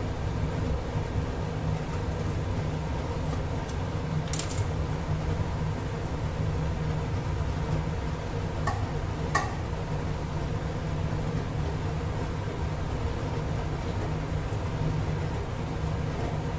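Steady low rumble of kitchen machinery noise, with a couple of brief metal clinks of a utensil against a steel kadhai, one about four seconds in and another about nine seconds in.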